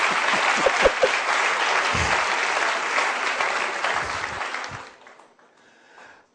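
Studio audience applauding, with the clapping dying away about five seconds in.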